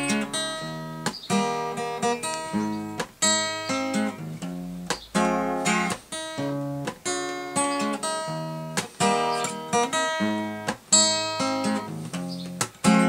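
Takamine cutaway acoustic guitar strummed in a steady rhythm of chords, with brief muted breaks between some strokes.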